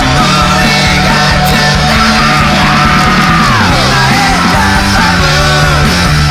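Loud, steady punk rock with a full band of distorted guitar, bass and drums, and shouted vocals. A long pitched line falls away about three to four seconds in.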